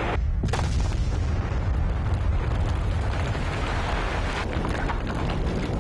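The rumble of a rock-blasting explosion on a mountainside, carrying on deep and steady after the initial blast as the shattered rock and dust are thrown down the slope.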